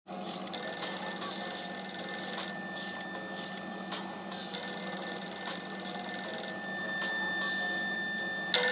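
Telephone ringing: two rings of about two seconds each, about two seconds apart, over a steady low hum. A short loud burst comes near the end.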